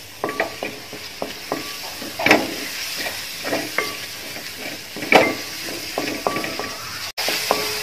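A wooden spatula scrapes and knocks against a metal pot as sliced tomatoes are stirred into an onion and spice masala, which sizzles in the hot oil. The strokes are uneven, with the loudest scrapes about two seconds in and again about five seconds in.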